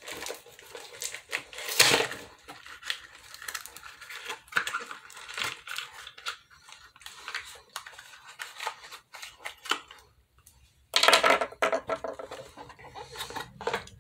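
Plastic and cardboard action-figure packaging being handled and crumpled: irregular rustling and crackling, with a loud crinkle about two seconds in and a longer, loud crackling stretch near the end.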